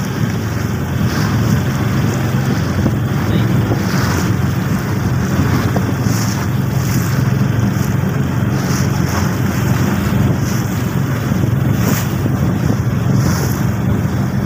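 Motorboat engine running steadily at cruising speed as the boat moves across the lake, with water rushing past the hull, short splashes now and then, and wind buffeting the microphone.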